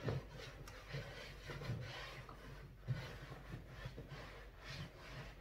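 Towel rubbing and wiping over the padded black upholstery of a pedicure spa chair: several soft swishes, with a light bump about three seconds in.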